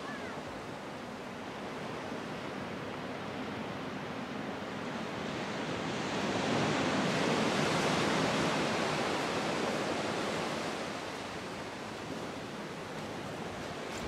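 Small waves washing onto a sandy beach: a steady hiss of surf that swells for several seconds in the middle and eases off again.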